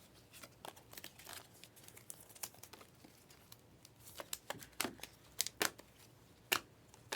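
Hands handling Panini Mosaic trading cards and their pack wrappers: an irregular run of soft clicks, slides and crinkles as cards are flipped through.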